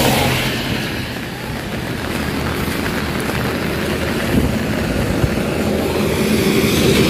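Vehicles passing on a wet, rain-soaked road with steady rain: tyre hiss on wet tarmac, loudest at the start and fading within the first second. Another vehicle grows louder near the end.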